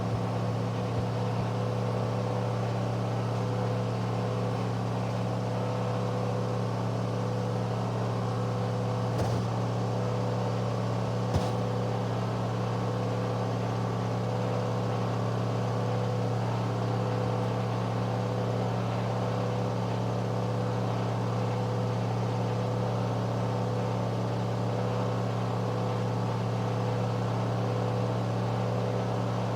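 Candy front-loading washing machine in its final spin at high speed, the drum and motor giving a steady low hum. There are two brief clicks near the middle.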